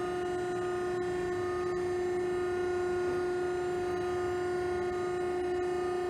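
Piqua Engineering vertical cardboard baler running, giving a steady whine held at one pitch with a row of higher overtones above it, swelling slightly around the middle.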